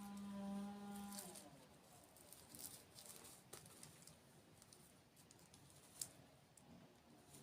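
A person's closed-mouth 'mmm' hum, held and then falling away about a second in, followed by faint crisp clicks and crackles of close-miked eating, with one sharper click near the end.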